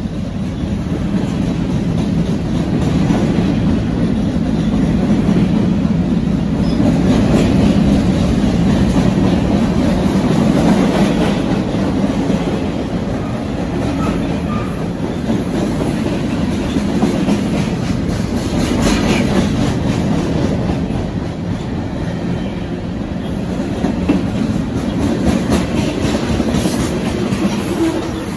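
Freight train cars rolling past at close range: a steady low rumble of steel wheels on the rails, with clacking as the wheels cross rail joints.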